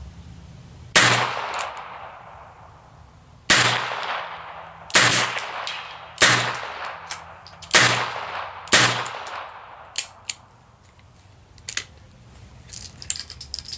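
Six .22 LR revolver shots from a Smith & Wesson Model 17-3, fired in a mix of double and single action at uneven intervals over about eight seconds, each with a short ringing tail. Light metallic clicks and clinks follow near the end.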